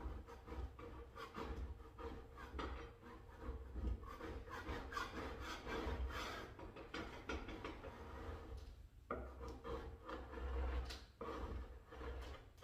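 Paint scraper pushed over a wooden door panel in repeated short, uneven strokes, scraping off paint softened by chemical paint stripper.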